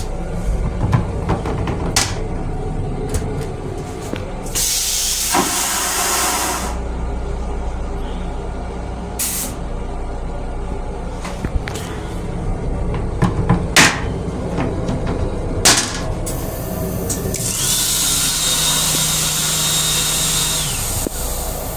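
Train toilet flushing with a loud rushing hiss of about two seconds, some five seconds in. Near the end the sink faucet runs for about three seconds as a hiss with a steady whine in it. A low rumble from the train continues underneath, with scattered clicks and knocks.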